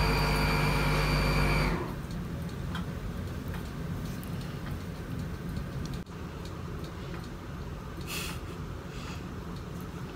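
A machine's steady hum with a high whine cuts off suddenly about two seconds in, leaving a faint low room hum with a few small handling ticks.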